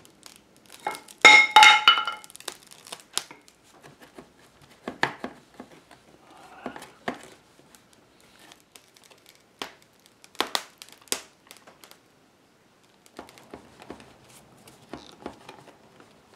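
Woven rush seat crackling and wooden chair joints creaking as the chair frame is squeezed together under bar clamps and hand pressure, the seat straining as the tenons are forced in. A loud squeaky creak comes about a second in, followed by scattered clicks and crackles.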